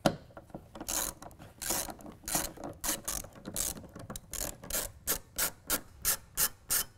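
Hand ratchet with a T50 Torx bit being worked back and forth to unscrew a truck-bed tie-down cleat, clicking in a run of short strokes that come faster in the last couple of seconds.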